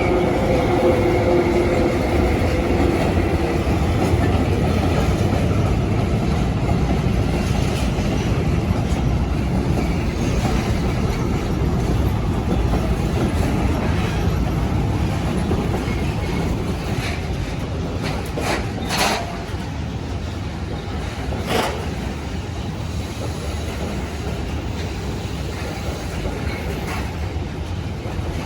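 A Schwarzwaldbahn train running on the line: a steady rumble of wheels on rail. A few fading tones sound in the first seconds, and there are two brief sharp sounds about two-thirds of the way through.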